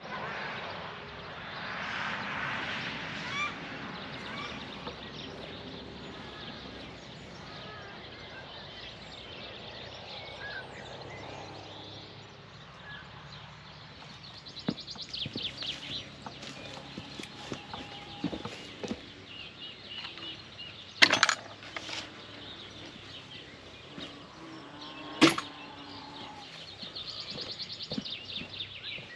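Chickens clucking with other birds calling. Two loud sharp knocks come about four seconds apart in the second half.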